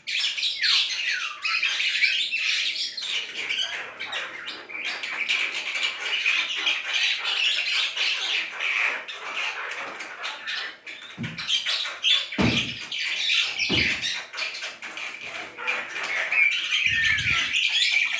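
A black starling (jalak hitam) chattering and squawking without pause: a dense run of harsh notes and short whistled glides. A few dull low thumps come in the second half.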